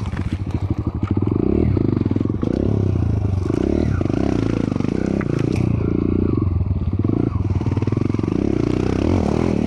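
Off-road dirt bike engine running hard and revving up and down over a rocky trail, its pitch rising and falling repeatedly, with scattered clatter of stones under the tyres.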